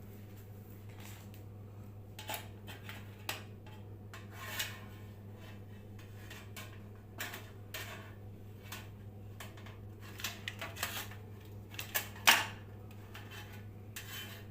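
Scattered small metallic clicks and clinks of parts and tools being handled, over a steady low electrical hum. The loudest is a sharp click about twelve seconds in.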